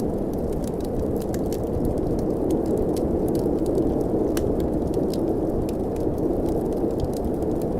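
Steady low wind of a blizzard, with a wood fire crackling over it in many small, irregular sharp pops.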